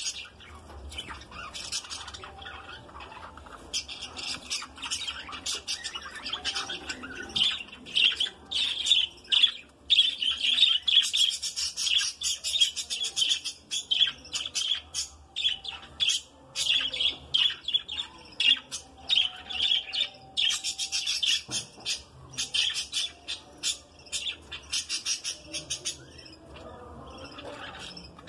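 Flock of budgerigars chattering and chirping, a dense stream of rapid high-pitched calls that grows louder several seconds in and eases off near the end.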